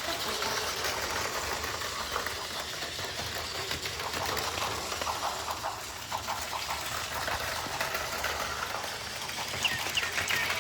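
Plarail battery-powered toy trains running on plastic track: a steady motor whir with scattered light clicks.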